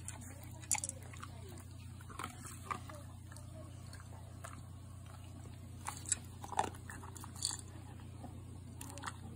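American Cocker Spaniel eating dry kibble from a bowl: irregular crisp crunches as it bites and chews, louder and closer together about six to seven and a half seconds in.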